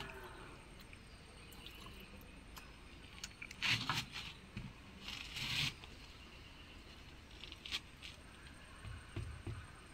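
Terracotta tiles clattering and scraping against each other as they are handled, in two short bursts, followed by a few soft knocks as a tile is set onto wet mortar.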